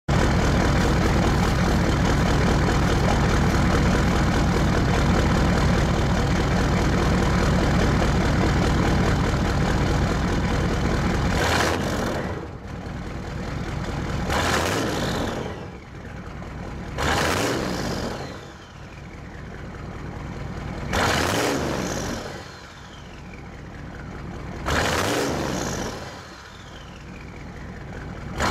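1984 Chevrolet K30's turbocharged 6.2 litre V8 diesel runs steadily and loud for about eleven seconds. Then it is revved in five sharp blips a few seconds apart, and after each one the turbo whistle falls away as it spins down.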